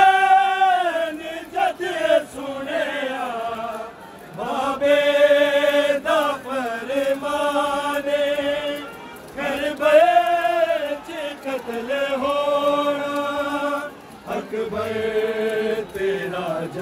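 A noha, a Shia mourning lament, chanted by a single voice in long held notes with a wavering vibrato, phrase after phrase with short breaths between.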